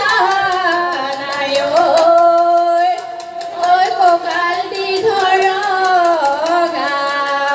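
Women singing a Jeng Bihu song into microphones through the stage PA, with long held notes that waver and slide in pitch.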